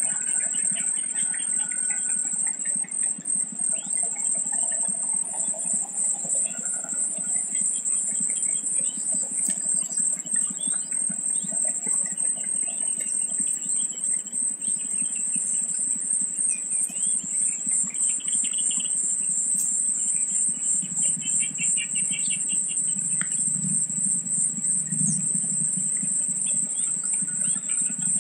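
A steady, high-pitched insect chorus, crickets or cicadas, drones throughout. Scattered short chirps and trilled calls of small birds sound beneath it.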